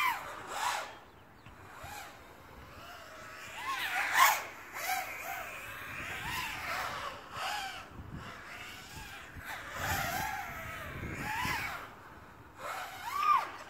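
Riot250r FPV racing quadcopter flying around the course, its motors whining and rising and falling in pitch with the throttle, with repeated louder swells as it passes, the loudest about four seconds in.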